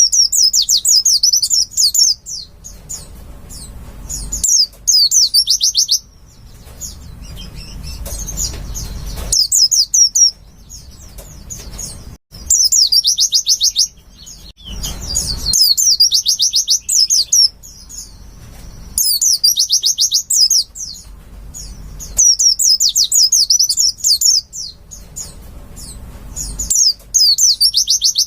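White-eye (pleci) song: fast, high trilled phrases about two seconds long, repeating every couple of seconds with short pauses between them.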